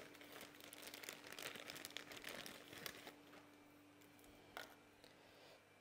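Faint crinkling of thin plastic bags as bagged aquarium plants are handled and opened, busiest in the first three seconds, with a single small click later on.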